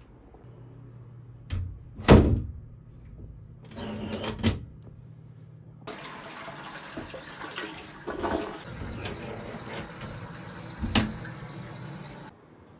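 A loud thump about two seconds in and a few smaller knocks. Then an INAX toilet flushes for about six seconds, with water rushing steadily into the bowl.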